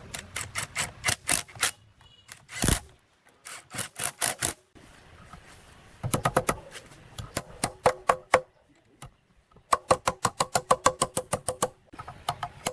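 Rapid runs of sharp tapping strikes, about five or six a second, from hand-tool work on the machine's parts. They come in several bursts with short pauses, and one heavier knock falls about a quarter of the way in.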